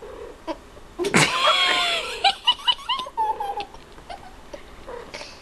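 A young child bursting into loud laughter about a second in, followed by a run of short quick giggles that fade out.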